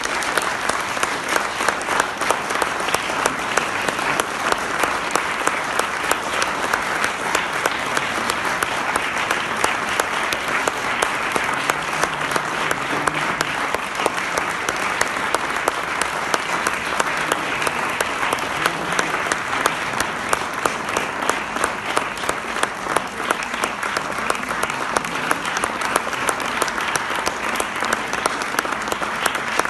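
Audience applauding steadily, starting right at the outset, with sharp individual claps from someone close by standing out above the crowd.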